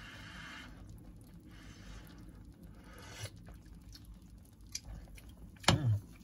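Pot of sinigang broth simmering with eggplant and radish, a low steady hiss with faint ticks. Near the end a short loud sound falling in pitch as the cook tastes the broth from the ladle.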